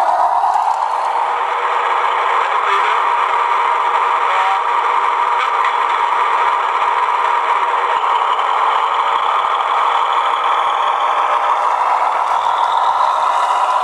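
Diesel engine running sound from a Massoth sound decoder, played through the small loudspeaker of a USA Trains G gauge diesel switcher as it runs along the track. It runs steadily and sounds thin, with no deep bass.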